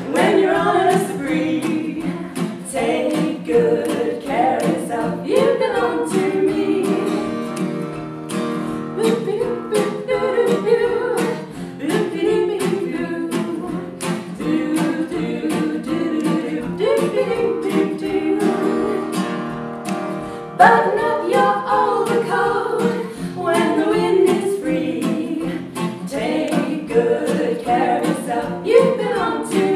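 Voices singing a song together with a strummed acoustic guitar.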